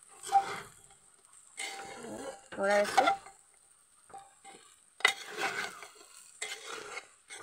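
A metal ladle stirring and scraping rice and vegetables frying in oil in a pressure cooker pot, in several separate strokes, over a faint steady sizzle.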